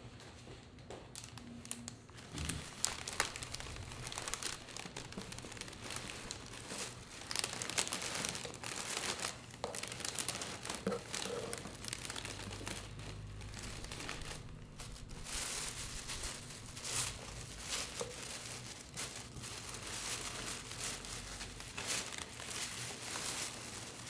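Wrapping material being handled and crinkled: a dense, irregular run of crackles and rustles.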